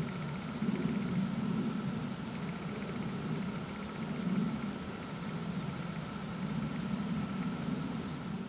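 Outdoor field ambience: a steady low rumble with a faint high chirp repeating every second or so.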